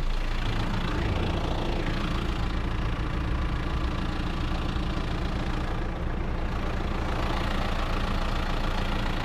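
Engine of a farm machine running at a steady speed.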